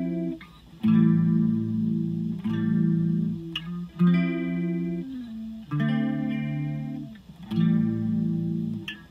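Electric guitar played through a Deadbeat Sound Wet Dreams chorus pedal set with level and depth up and speed down, giving a slow, deep chorus warble. Five chords are strummed in turn, each left to ring.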